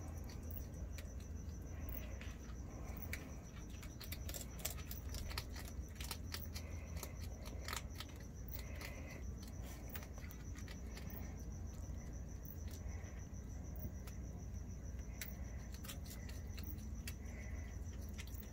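Crickets chirping in a steady, rapidly pulsing high trill, with scattered short clicks and crunches from two striped skunks eating dry food and crumbs from a bowl.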